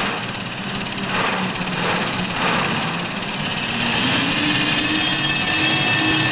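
City street traffic: car and truck engines running in a steady din, with a low engine note that holds and shifts slightly in pitch.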